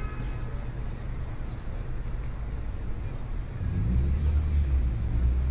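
Street traffic rumble, a low steady drone that swells louder about three and a half seconds in.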